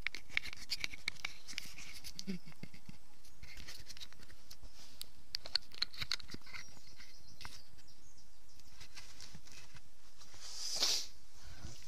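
Scattered light clicks and rustling from gear being handled, with a louder rustle near the end.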